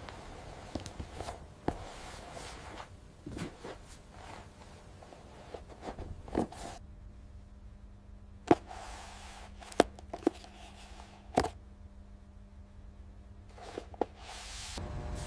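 Irregular light clicks and taps of handwork at a workbench, a dozen or so scattered through, over a faint background. A steady low hum sets in about halfway and stops shortly before the end.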